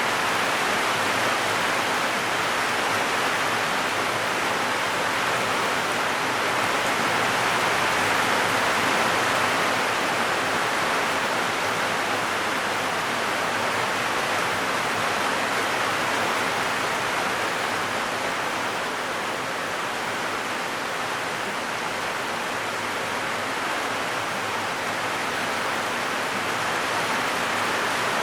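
Heavy rain drumming steadily on a zinc (corrugated metal) roof, a dense continuous hiss with no single drops standing out, swelling slightly and easing back.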